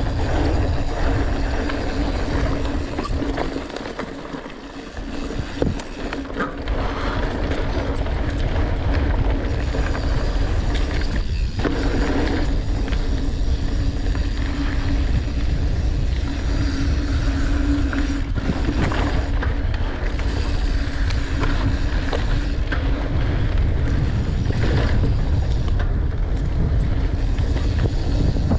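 Norco Torrent steel hardtail mountain bike rolling down a dirt trail: wind buffeting the camera microphone over tyre noise and a steady hum, with scattered knocks and rattles from the bike over bumps. It dips quieter briefly about four seconds in.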